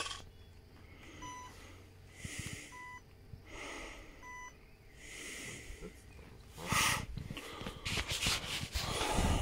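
Short electronic beep from RC model gear, repeating about every one and a half seconds, with soft breath-like hisses between the beeps. From about seven seconds in, louder rustling and knocking takes over.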